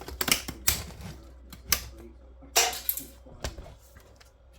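Sharp plastic clicks and knocks from prying apart and handling a flat-screen TV's casing and parts, about half a dozen in the first three and a half seconds, with a short scrape in among them.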